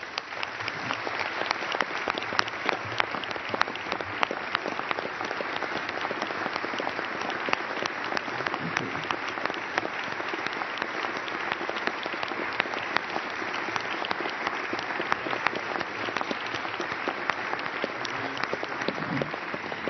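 A large crowd of lawmakers applauding steadily, many hands clapping at once for about twenty seconds.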